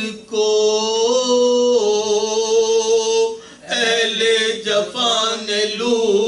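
Men chanting a soz, an unaccompanied Shia lament, in long held notes, with a second voice holding a lower note beneath the lead. The chant breaks briefly for breath about three and a half seconds in.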